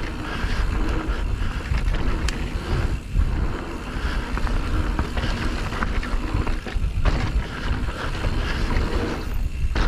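Wind rushing over the microphone during a ride on an electric mountain bike, with a steady low rumble and a few scattered clicks and knocks from the bike and trail.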